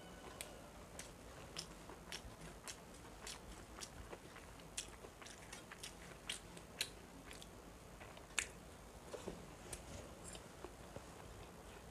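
Faint close-up chewing of rice and fried water spinach (kalmi shak) eaten by hand, with irregular small wet clicks and mouth smacks a few times a second. The sharpest click comes about eight seconds in.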